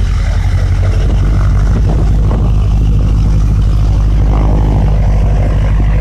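P-51D Mustang's Merlin V12 piston engine running as a steady, loud low drone.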